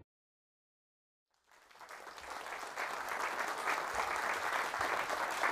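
Audience applause, fading in after about a second and a half of dead silence and continuing steadily.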